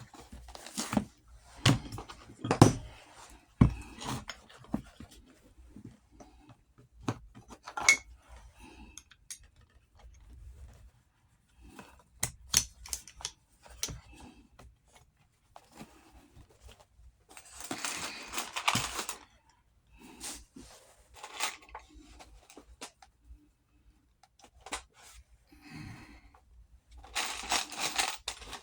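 Hand work on a Western saddle's leather and buckle hardware: scattered knocks and clicks, with a longer stretch of scraping and rustling leather about two-thirds of the way through and again near the end.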